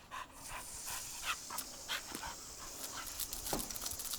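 A dog panting in short, irregular breaths.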